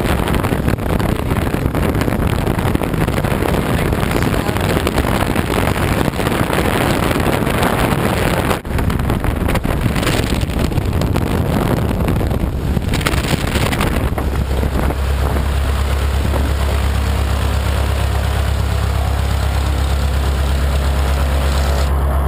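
Lycoming O-290 flat-four aircraft engine of a Stolp SA-900 V-Star biplane running on the ground, loud, with propeller blast buffeting the microphone. About fourteen seconds in, the sound settles into a steady low drone.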